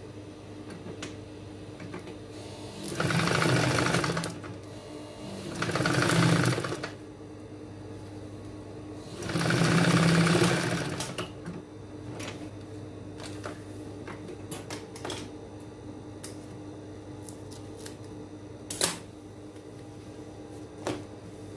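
Industrial flatbed lockstitch sewing machine stitching a seam in three runs of a second or so each, with a steady hum between runs. Small clicks between, and one sharp click near the end.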